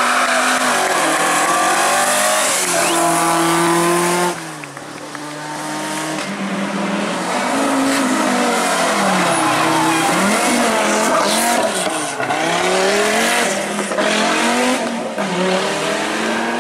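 Rally car engines revving hard through a tight bend, the engine note rising and falling with gear changes and lifts, with tyre squeal. About four seconds in, the sound cuts abruptly to another car coming up the stage.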